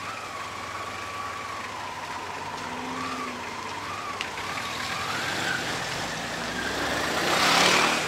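Auto-rickshaw engine running as it pulls away, its whine wavering and rising in pitch about halfway through, with a brief rushing noise near the end.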